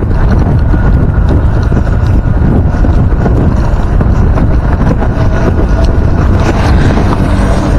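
Steady wind buffeting the microphone of a moving motorcycle, with the motorbike's engine running underneath.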